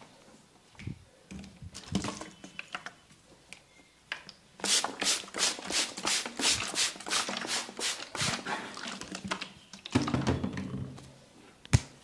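Rapid percussive massage strikes on the head or body, about four sharp taps a second for some five seconds, after a few scattered lighter taps. A single sharp click near the end.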